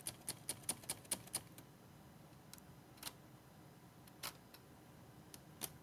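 Light mechanical clicks from a Hermes 3000 typewriter's ribbon mechanism being handled while a new ribbon is fitted: a quick run of about seven clicks at the start, then four single clicks spaced out over the next few seconds.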